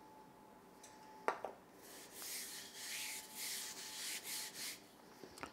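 Hands rubbing flour along a wooden rolling pin: a run of quick, dry brushing strokes for about three seconds. A light knock about a second in, as the metal flour shaker is set down on the counter.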